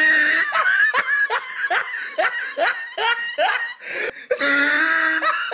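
A person laughing hard: a run of breathy ha-ha pulses, about two or three a second, between held high-pitched voiced notes at the start and near the end.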